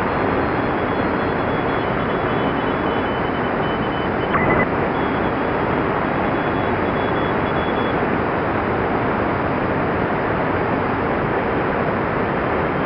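Shortwave receiver on 14024 kHz in the 20-metre amateur band, in single-sideband mode: steady band hiss with faint Morse code tones keyed on and off. A short, louder beep comes about four seconds in.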